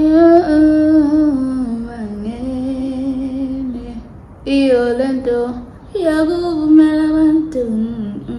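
A woman singing alone without accompaniment: long held notes that slide between pitches, in several phrases with short breaks between them.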